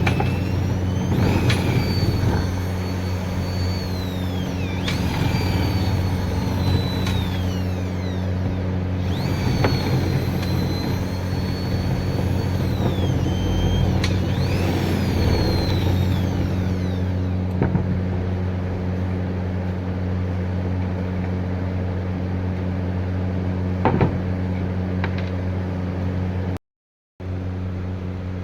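An electric woodworking machine runs with a steady motor hum. Through the first sixteen seconds or so it gives high whining tones that rise and fall as the tool works the wood. There are a couple of sharp knocks later on.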